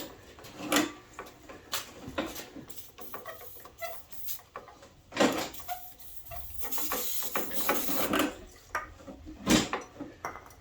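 Scattered metal clinks and knocks from hands and tools working on a lawnmower's throttle cable, with a hiss of aerosol WD-40 spray for about two seconds, starting about seven seconds in, sprayed on the sticking cable to get it moving smoothly.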